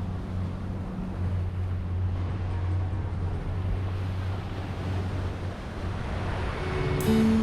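Boat engine running steadily under way, a constant low drone with wind and water rush over it. A sudden change near the end.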